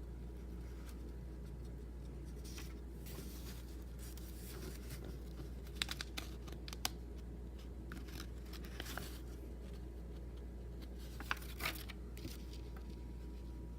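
Paper pages of an instruction booklet rustling and crinkling in short bursts as they are handled and turned, with a few sharp clicks, over a steady low hum.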